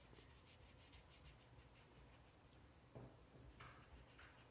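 Faint scratching of a felt-tip marker colouring back and forth on paper, with a small knock about three seconds in.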